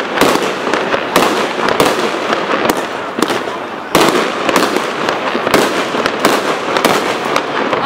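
Aerial fireworks display: a rapid series of shell bursts and bangs, several large ones about a second apart, with crackling in between.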